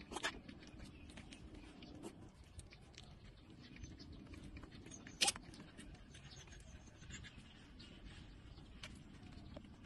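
Puppies suckling at their mother's teats: scattered small wet clicks and smacks, with a louder smack right at the start and another about five seconds in.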